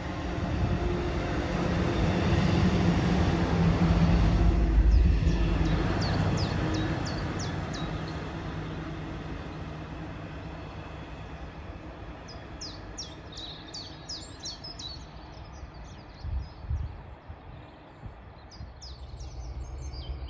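Train passing: a low drone and rumble builds to its loudest about four to five seconds in, then fades away. Small birds chirp in the second half.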